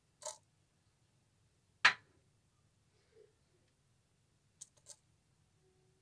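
A few short taps and clicks as sticks of ginger and garlic cloves are dropped into a steel pan. The loudest is a single sharp knock about two seconds in, followed near the end by two quick clicks.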